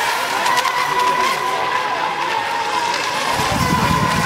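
High, steady whine of several electric radio-controlled racing boats running flat out, their pitch wavering slightly as they race. A low rumble joins near the end.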